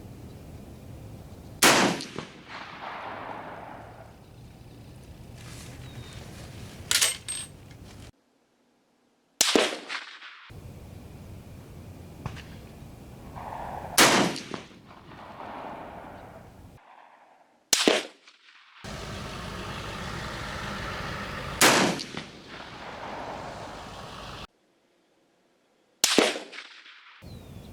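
Single rifle shots fired one at a time, about six of them several seconds apart, each a sharp crack followed by a fading echo. A lighter sharp click comes between the first two shots.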